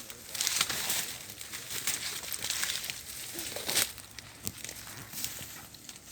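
Irregular rustling and crackling of leaves and brush with small snapping clicks, as people climb through undergrowth. It fades near the end.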